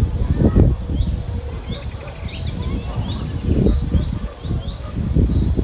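Wind buffeting the microphone in uneven gusts, with small birds giving short, quick chirps over a steady high insect whine.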